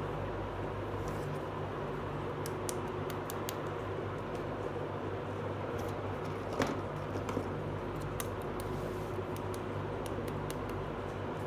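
Small plastic toy pieces clicking and tapping as they are handled and set down on a tabletop, a scatter of light clicks with one sharper tap about six and a half seconds in, over a steady low hum.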